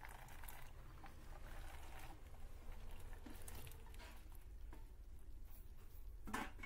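Chopped vegetables scooped by hand off a steel plate and tipped into a pot of water, with faint patters, clicks and small splashes over a low steady hum. A sharper, louder knock comes near the end.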